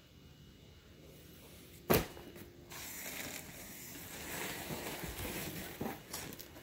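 Handling noise as cardboard boxes are swapped: a sharp knock about two seconds in, then a stretch of rustling and shuffling with a few small knocks.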